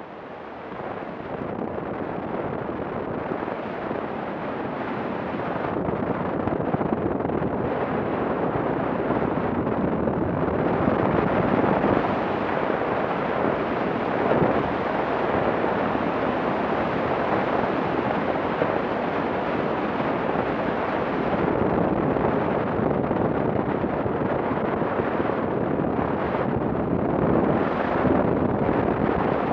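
A Yamaha adventure motorcycle riding along a gravel road, heard mostly as a heavy rush of wind on the microphone with engine and tyre noise beneath it. The rush builds over the first several seconds as the bike gathers speed, then holds steady.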